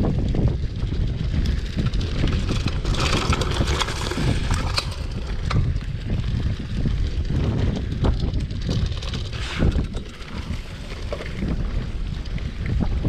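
Mountain bike riding fast downhill on a dirt trail: wind buffets the microphone over a steady rumble of the tyres. Scattered knocks and rattles come from the bike as it goes over bumps, with a stretch of hiss about three seconds in.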